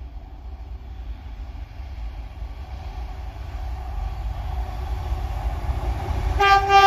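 GBRf Class 66 diesel locomotive 66761, with its two-stroke V12 engine, approaching at the head of a freight train: a low engine and wheel rumble that grows steadily louder. Near the end the locomotive's horn sounds one steady, loud note.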